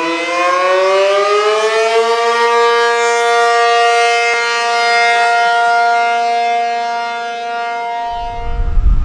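ACA P-50 electromechanical tornado siren winding up, rising in pitch over the first two seconds, then sounding its steady alert tone, which swells and dips in loudness. A low rumble comes in near the end as the tone fades under it.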